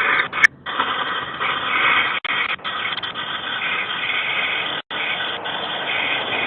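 Steady noise hiss through a doorbell camera's small microphone, with brief dropouts to silence about half a second in, near two seconds and near five seconds, and a sharp click about half a second in.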